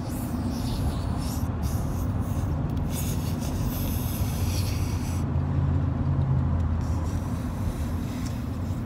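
Steady low road and engine rumble inside the cabin of a moving Cadillac. For the first few seconds it is overlaid by rustling as the phone rubs against hair close to the microphone.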